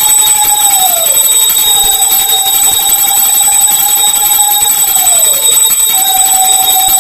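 Conch shell (shankha) blown in long, steady notes. Each note sags in pitch and dies away as the breath runs out: once about a second in, again about five and a half seconds in, with a fresh note starting soon after. This is the conch call that opens the puja.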